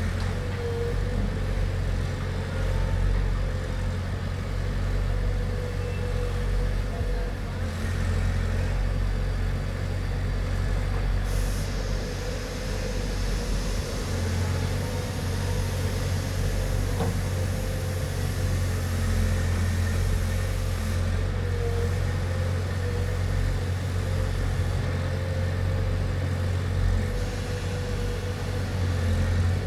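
Diesel engine of a JCB 3DX backhoe loader running steadily with a low, even hum.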